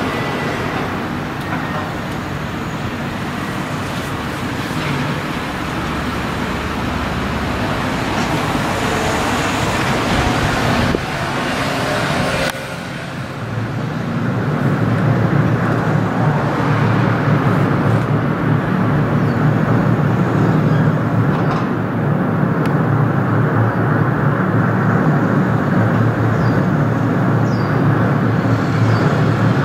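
Steady rumble and rushing of a gravel carrier's engine and propeller wash as the ship manoeuvres onto the quay. It turns deeper and louder a little under halfway through.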